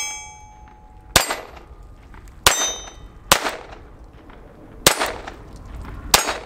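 Ruger LCP II .22 LR pocket pistol firing five shots at an uneven pace, roughly one every second or so. A steel target is still ringing from a hit at the start, and another rings after the second shot.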